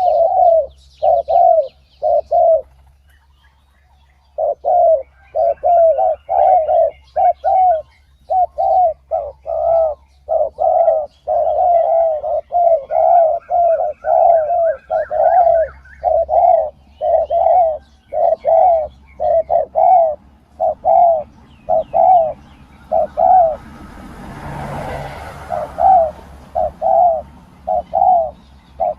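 Spotted doves cooing over and over in a steady series of low coos, with a pause of about two seconds near the start. About 25 seconds in comes a brief rustling noise, and faint high chirps of other small birds sound in the background.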